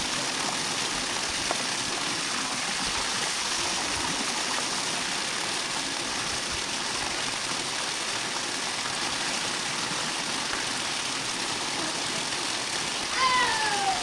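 Steady rush of water from a backyard pool's water feature, pouring without a break. Near the end comes a brief high call that falls in pitch.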